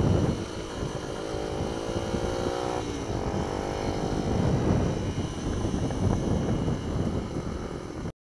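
Mini-bike engine running under throttle, heard from on board with heavy wind buffeting on the microphone. Its note climbs in pitch about one and a half seconds in, then drops away near three seconds, and the sound cuts off abruptly just before the end.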